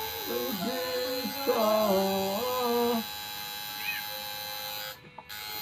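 A singing voice from a background song, holding several long notes that bend at their ends and stop about three seconds in, over a faint steady high whine. The sound drops out for a moment near the end.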